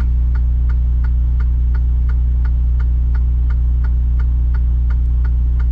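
Semi truck's diesel engine idling, a steady low hum, with an even ticking about five times a second.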